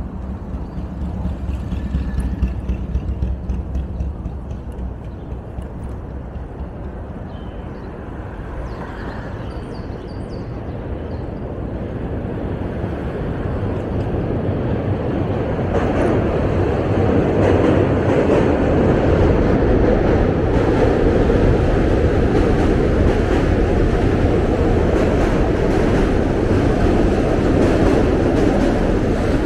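Low rumble of moving traffic, then a train's roar that builds over several seconds about halfway through and stays loud and steady to the end.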